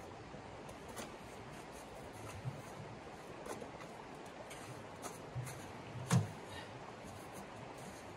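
Steady faint hiss with a few scattered soft clicks and knocks of small handling noises, the loudest about six seconds in.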